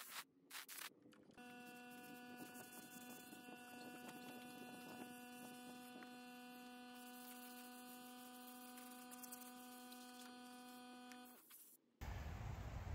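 A faint, steady electronic tone, one held note with a ladder of overtones, that cuts off about eleven seconds in. In the last second a louder, even outdoor noise with a low rumble takes over.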